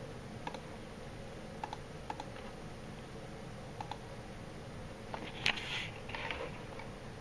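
Scattered faint clicks and taps over a steady low hum, with a louder click and short rustle about five and a half seconds in.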